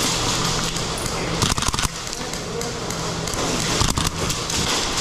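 Airsoft guns firing: a quick burst of several sharp shots about a second and a half in, and another single shot near the end, over steady hiss and a low hum.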